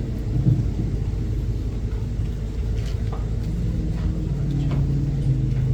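Low steady rumble of a church sanctuary's room noise, with a faint sustained low hum and a few faint ticks.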